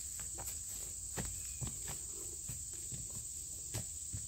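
A horse walking on a grassy dirt trail, its hooves landing in irregular soft thuds, over a steady high insect drone.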